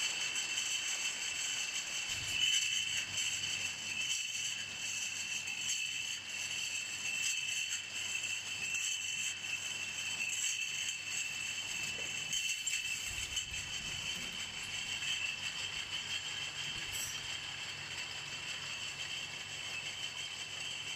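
Automatic 661 EPV bottling microblock running: glass beer bottles clink and rattle against each other and the guides as they move along the conveyor and infeed screw into the rinser. Under this is a steady high-pitched machine whine, and a low hum comes in about two-thirds of the way through.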